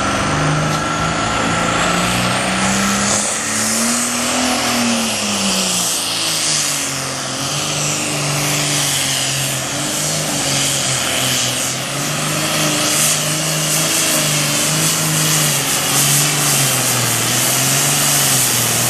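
Super Farm class pulling tractor's turbocharged diesel engine running hard under load as it drags the weight sled. Its pitch rises about four seconds in, dips, then wavers up and down.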